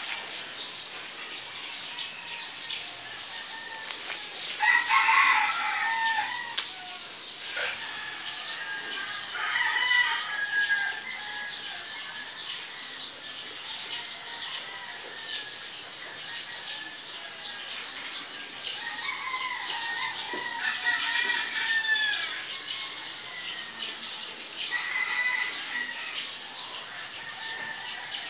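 A rooster crowing in the background, about four crows spaced several seconds apart, over a steady background hiss.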